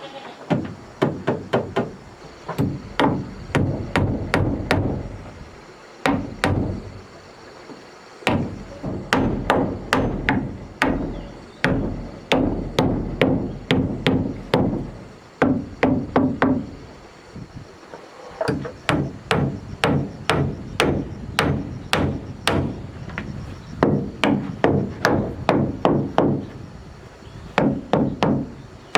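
A hammer striking wood in quick runs of blows, about three a second, with short pauses between runs.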